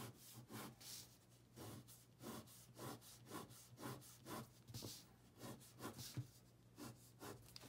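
Pen tip scratching on paper in quick back-and-forth strokes, about three a second, going over the lines to thicken them. The strokes are faint.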